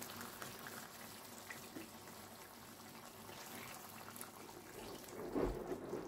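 Water poured from a measuring cup into a steaming electric pot of curry chicken, a steady, quiet splashing and bubbling. There is louder handling noise near the end.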